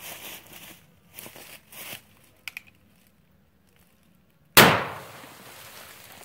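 A single shot from a rifle firing a hot .45 Colt +P load about four and a half seconds in, loud and sharp, with a tail that rings away over about a second. Faint rustling and two small clicks come before it.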